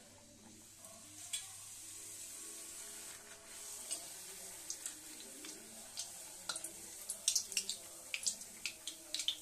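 Golgappa puris frying in hot oil on low flame: a steady sizzle, with sharp pops and clicks that come more and more often in the second half.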